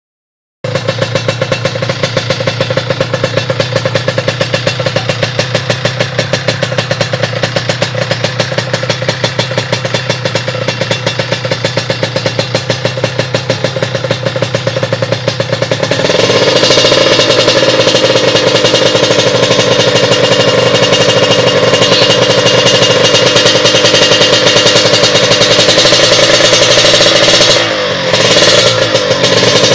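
Kawasaki Ninja motorcycle engine running through a Dust racing exhaust, a fast, evenly pulsing idle. About halfway through it is held at higher revs, louder and higher-pitched, then dips briefly near the end and picks straight back up.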